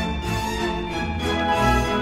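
Orchestral background music with bowed strings, a steady sequence of held notes over a low bass line.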